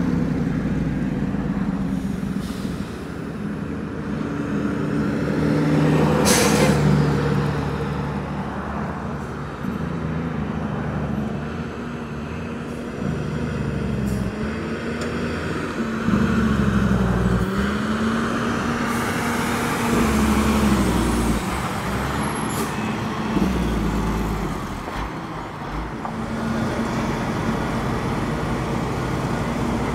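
Heavy diesel truck engines running, their pitch rising and falling as they rev and pull. About six and a half seconds in there is a short burst of air hiss.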